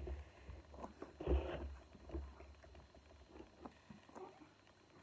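Faint handling of part-filled plastic water bottles on a wooden floor: a few light taps, with a brief, slightly louder shuffle about a second and a half in.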